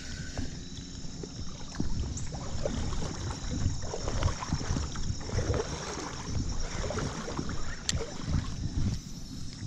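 Creek water sloshing and splashing in irregular surges, over a steady high hiss, with one sharp click near the end.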